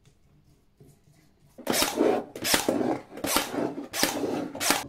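Cordless brad nailer firing a run of brads into a pine rail, about two shots a second after a quiet start.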